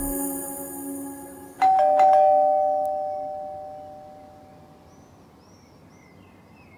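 Two-tone ding-dong doorbell chime rings once, a higher note then a lower one, dying away over about three seconds. Background music fades out just before it, and faint bird chirps follow near the end.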